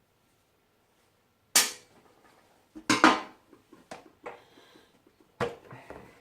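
Sharp snaps and knocks as a motorcycle side panel is pulled free of its mountings: two loud snaps about a second and a half apart, a few lighter clicks, then another knock near the end.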